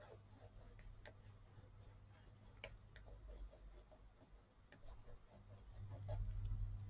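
A thick Stabilo crayon-pencil rubbing and scratching on textured, acrylic-painted paper, with scattered light ticks from the strokes. A steady low hum runs underneath and grows louder near the end.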